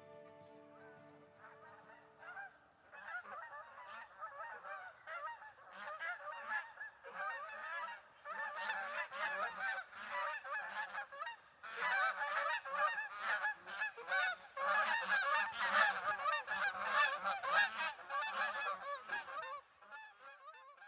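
A flock of geese honking, many calls overlapping, growing louder and denser about halfway through. Background music fades out at the start.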